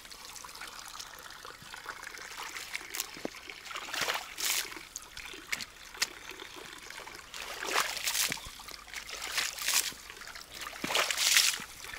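Muddy shoes being rinsed in a small stream: several splashing swishes a few seconds apart over a steady trickle of running water.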